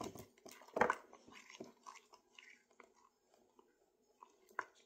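Spoon stirring thick dyed glue in a bowl: scattered sticky clicks and scrapes, with one louder knock about a second in.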